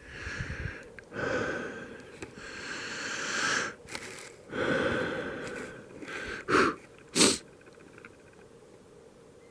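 A person breathing out hard several times in noisy, breathy rushes, then two short, sharp, loud bursts of breath about half a second apart, like sneezes or hard sniffs.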